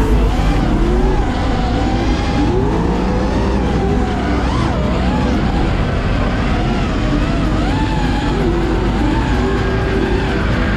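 Drift cars' engines revving up and down, several pitches rising and falling at once over a constant rush.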